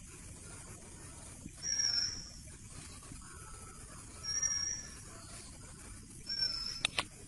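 A bird calling three times, a short high call about every two and a half seconds, over a steady outdoor hiss. Two sharp clicks come near the end.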